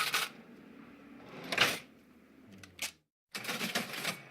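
Cash register sounds in short noisy bursts: one at the start and a louder one about a second and a half in. After a brief dead-silent gap, a softer run of mechanical noise follows.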